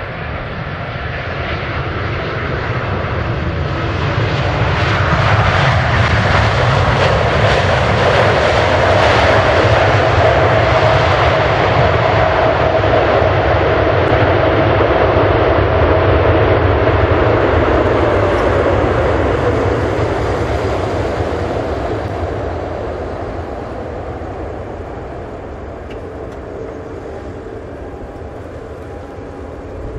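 Boeing 787-8 airliner's Rolls-Royce Trent 1000 jet engines roaring through the landing rollout. The roar swells a few seconds in, stays loud as the plane passes, and fades over the last ten seconds as it rolls away down the runway.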